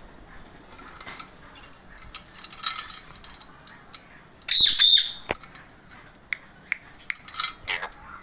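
Alexandrine parakeets making short scattered calls, with one loud, harsh squawk about halfway through.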